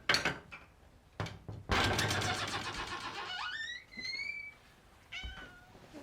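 A domestic cat meowing: two rising meows about halfway through and a shorter one near the end. These follow a couple of knocks near the start and a longer, louder scratchy noise.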